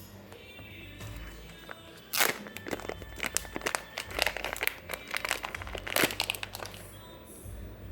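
Plastic packaging crinkling and tearing in quick, sharp crackles for about four seconds as a squishy is unwrapped, over background music.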